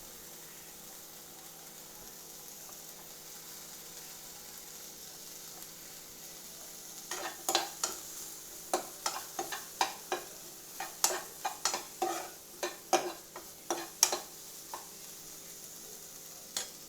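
Onion, green chilli and tomato frying in butter in a pan, with a steady soft sizzle. From about seven seconds in, a utensil stirs the pan for several seconds, with a quick run of sharp clicks and scrapes against the pan, and one more tap near the end.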